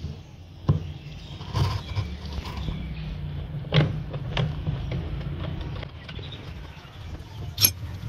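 Metal clinks and knocks from hand tools and a bolt as the washing machine's replacement gearbox assembly is bolted on, about five sharp strikes spread through, over a steady low background rumble.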